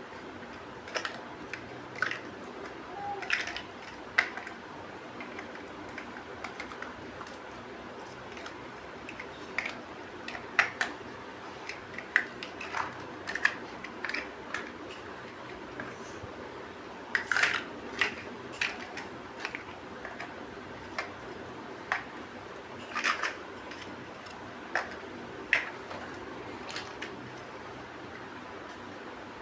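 Plastic building-block bricks clicking and snapping together and being handled, in irregular single clicks and short clusters, over a steady low hiss.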